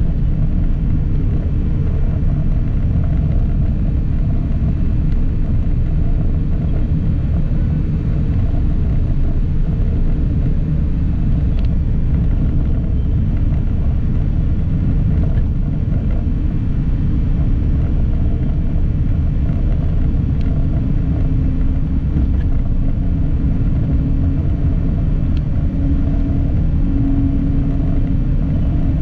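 Steady rumble of a moving road vehicle, engine and road noise together, with no sharp events. A faint steady hum rises a little above it for several seconds near the end.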